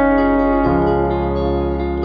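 Instrumental background music with held chords; the chord changes and a new low bass note comes in about two-thirds of a second in.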